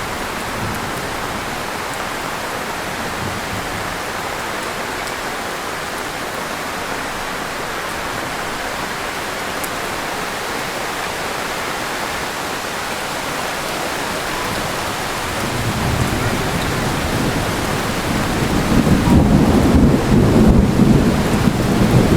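Heavy rain falling steadily, with a low rumble of thunder building about fifteen seconds in and growing louder near the end.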